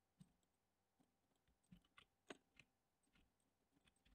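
Near silence with a handful of faint, short clicks from a computer keyboard and mouse in use, the loudest a little past two seconds in.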